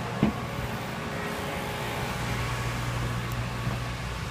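Steady low machine hum, with a brief knock near the start.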